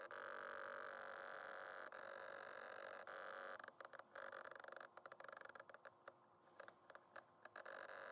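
Camera autofocus motor whirring with a thin, steady whine. From about three and a half seconds in it stutters in quick stops and starts, then runs steady again near the end.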